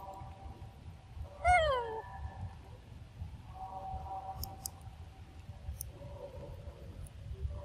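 A monkey gives one short call that falls in pitch, about one and a half seconds in, over a low rumble of background noise and faint steady tones.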